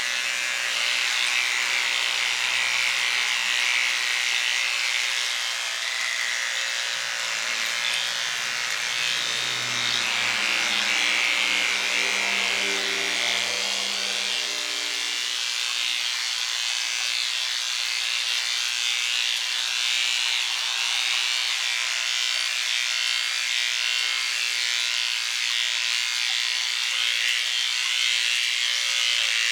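Electric hair clippers buzzing steadily while cutting a dog's hair.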